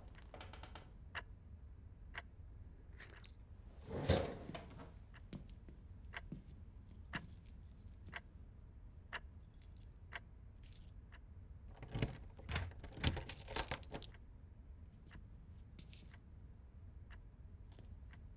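A clock ticking about once a second, with a dull knock about four seconds in. Later comes a jangle of keys lasting about two seconds.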